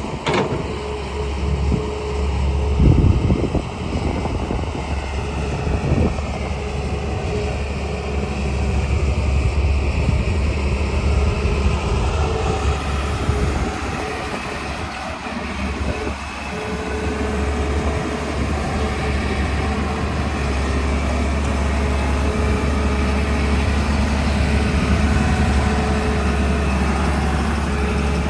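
Heavy diesel engine of a JCB 3DX backhoe loader running steadily at work, with a few heavy knocks in the first several seconds.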